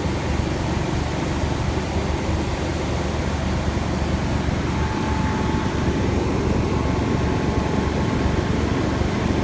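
1990 Chevrolet Suburban engine idling steadily with an even low rumble. A faint thin whine joins about halfway through.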